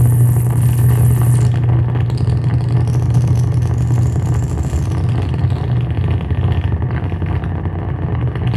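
Live electronic noise from effects pedals: a loud, steady low drone under a dense crackling texture, with a high whistling tone that cuts off about a second and a half in and a fainter high tone swelling and fading a few seconds later.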